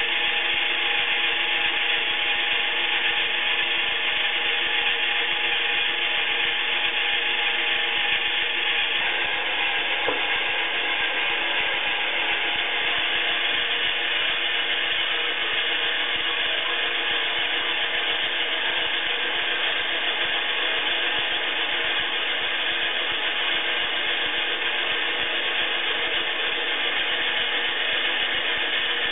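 Battery-powered Iriza toy washing machine running its wash cycle: its small electric motor whirs steadily as it turns the plastic drum, the tone shifting slightly about nine seconds in.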